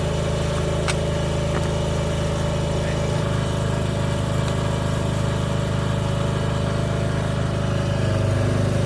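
An engine running steadily at idle, its pitch shifting slightly about three seconds in and growing louder near the end.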